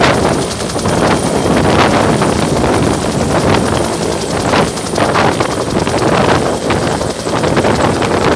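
Two-bladed military helicopter of the Bell Huey type running on the helipad with its rotors at speed: a steady engine and rotor noise with a fast, even blade beat.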